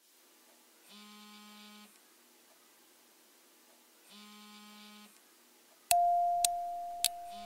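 Sparse background music: two soft held chords, then a loud, bell-like held tone about six seconds in, with a few sharp clicks over it.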